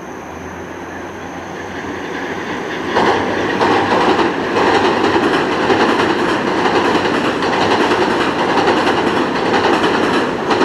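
Electric train crossing a steel girder railway bridge. The rumble builds as it approaches, then about three seconds in it turns into a loud, steady rumble of wheels on the bridge with repeated clacks from the rail joints.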